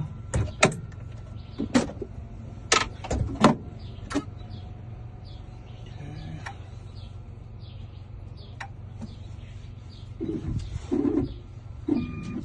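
A series of sharp clicks and knocks, bunched in the first four seconds, with a few softer knocks near the end, over a steady low hum: hand tools and lock parts being handled.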